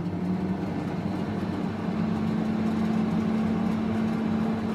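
Digital countertop cooker running just after being switched on, its fan whirring with a steady low hum that steps up slightly in pitch about two seconds in.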